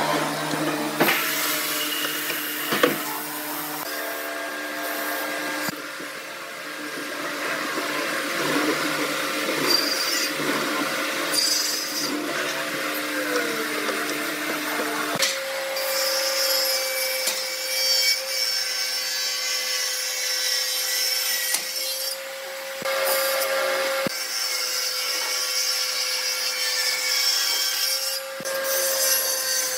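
An electric hollow-chisel mortiser runs with a steady motor hum while its chisel and auger chew into a pine beam. About halfway the sound changes abruptly to a Hitachi table saw running at a steady pitch, its blade cutting a pine board.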